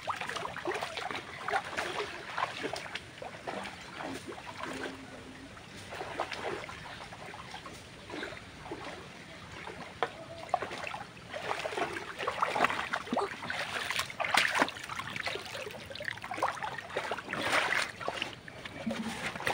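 Shallow muddy water splashing and sloshing in irregular small splashes as someone wades and works through it. The splashing gets busier and louder in the second half.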